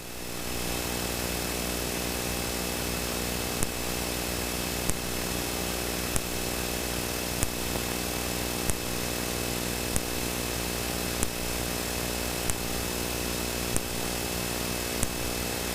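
Cockpit noise of a Cessna Citation V in its climb: a steady hum from its twin Pratt & Whitney Canada JT15D turbofans and the airflow, with a thin high whine over it. Faint sharp clicks repeat about every second and a quarter.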